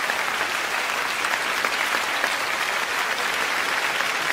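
Audience applauding, steady clapping from a seated crowd.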